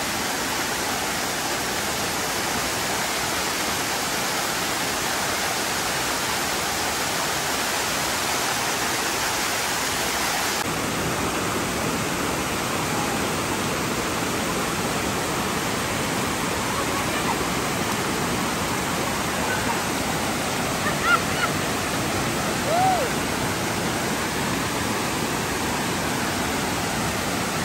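Water rushing down the stepped rock cascades of a waterfall, a steady full rush. About ten seconds in it turns to a softer, lower rush of water churning into a pool, with a couple of brief high cries near the end.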